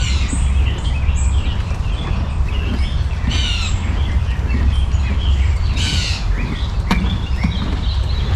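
Wild birds calling and chirping in the trees, in several short bouts, over a steady low rumble, with one sharp click about seven seconds in.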